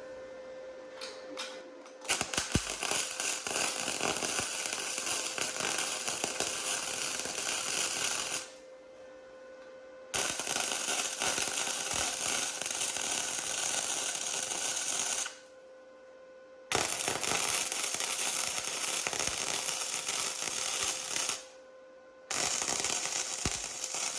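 Flux-core wire welder arc crackling in four runs of several seconds each, every run starting and stopping sharply, with a faint steady hum underneath.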